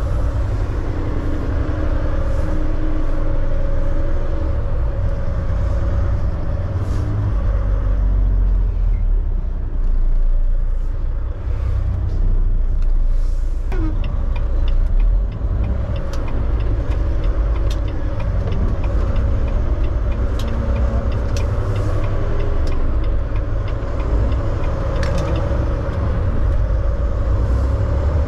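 Semi-truck's diesel engine and road noise heard inside the cab while driving: a steady low rumble.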